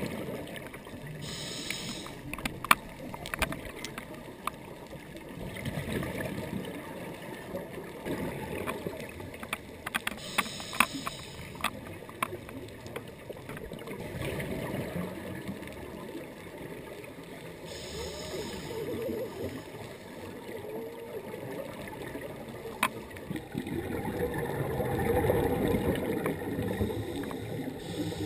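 Scuba diver's regulator breathing heard underwater: a short hissing inhale about every eight seconds, with gurgling exhaled bubbles in between, loudest near the end. Scattered sharp clicks sound throughout.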